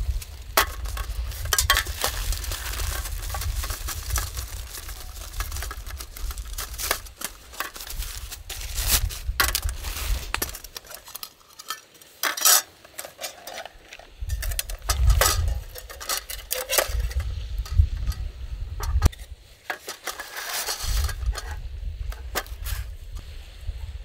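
Metal camp cookware handled on a folding aluminium table: a pot and its lid clinking and knocking, with scrapes, in irregular clusters of sharp hits.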